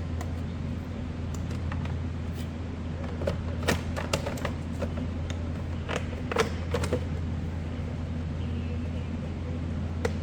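Plastic clicks and knocks as a trimmed mirror cap cover is pressed and snapped onto a truck's side-mirror housing, in two clusters about three to four seconds in and around six to seven seconds in. A steady low hum sits underneath.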